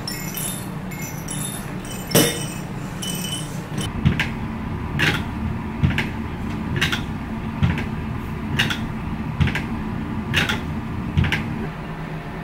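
A rocking chair rocking steadily, each swing giving a creak and a soft knock about once a second, over a steady background hum. Light clinks and one sharp click come before the rocking starts.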